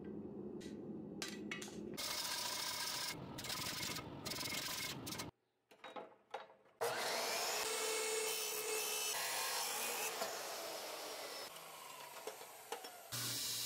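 Abrasive chop saw cutting through a metal rod: a harsh grinding noise with a motor whine, then the blade spinning down with a slowly falling whine. It is preceded by a few seconds of rough scraping noise broken by short gaps, and a brief pause with a few clicks.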